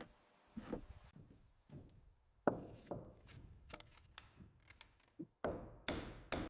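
Hand tools striking wood: a series of irregular knocks and taps, the sharpest about two and a half seconds in.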